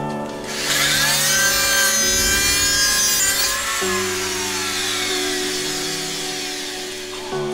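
Handheld rotary tool (Dremel-type) grinding the edge of a small black plate: a high motor whine with scraping from about half a second in, loudest for the first three seconds, then its pitch sinks slowly over the rest.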